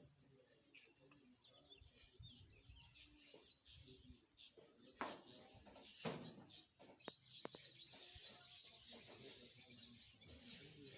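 Faint birds chirping, thickening into a dense chorus of rapid chirps in the second half, with a few soft clicks or knocks in between.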